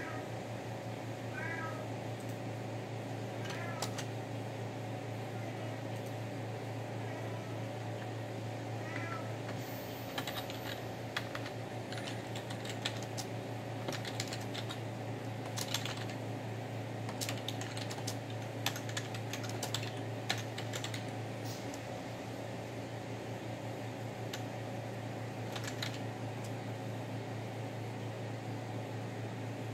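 A cat meowing four times, short calls spread over the first nine seconds, asking to be fed. Then a run of light clicks and taps for about ten seconds, over a steady fan hum.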